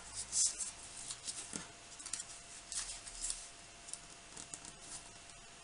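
Origami paper rustling and crinkling faintly as a square sheet is folded over and its crease pressed flat by hand, in a string of short, light rustles and ticks.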